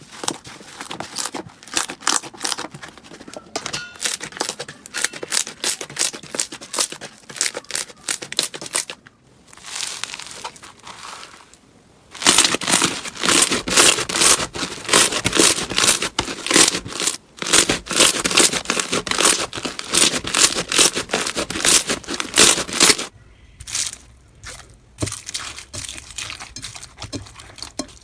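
Crunchy slime being squeezed and pressed by hand, giving dense runs of crackles and pops. The crackling is loudest through the middle stretch and softer at the start and end.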